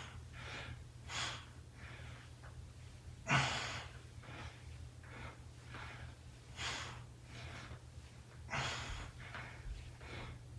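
A man breathing hard through a set of reverse crunches: repeated short, noisy breaths, roughly one or two a second, with two stronger exhalations about three and a half and eight and a half seconds in.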